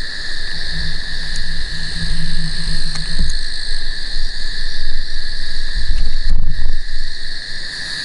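Steady night chorus of frogs and insects, a continuous high-pitched trilling in two bands. Low rumbles and knocks from the camera being handled and moved come twice, once from about one to three seconds in and again near the two-thirds mark, and these are the loudest sounds.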